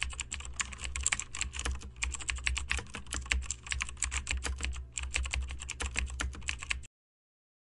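Keyboard typing sound effect: a fast, uneven run of key clicks over a low hum. It cuts off suddenly near the end.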